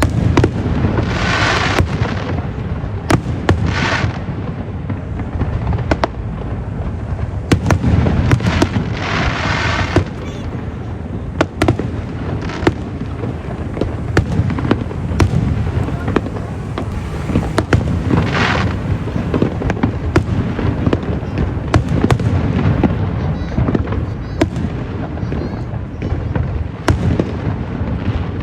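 Fireworks display: a steady run of sharp bangs from bursting aerial shells over a low rumble. Several times, a hissing crackle follows a burst.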